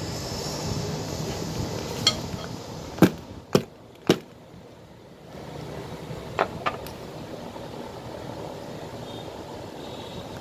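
Hammer striking a safety shoe: three sharp blows about half a second apart, then two lighter knocks a couple of seconds later, over a steady background rumble.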